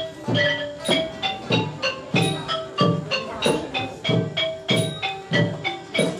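Music with a steady beat of pitched mallet percussion, xylophone-like notes, over drum strikes, about three strikes a second.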